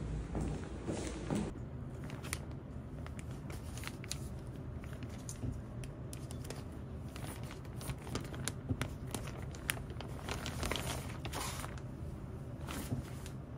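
Plastic packaging crinkling and rustling as hands handle and open a plastic mailer bag and a clear plastic bag, in irregular crackles that come thickest around ten seconds in.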